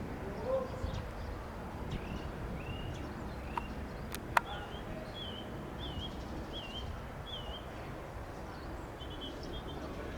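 A small bird chirping, a string of short wavy notes roughly one every half to three-quarters of a second, over a steady low outdoor background noise. A single sharp click about four seconds in.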